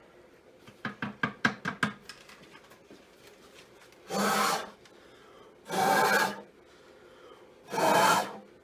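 Porting dust being cleared out of a freshly ported intake part: a quick run of light taps about a second in, then three short whooshing bursts about two seconds apart.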